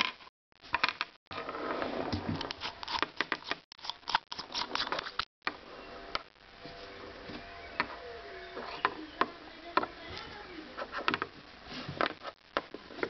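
Handling of a small metal flashlight and its threaded extension tube: irregular clicks, taps and light rattles as the tube sections and tail cap are turned, fitted and set down on a hard table, with a dense run of clicks in the first few seconds.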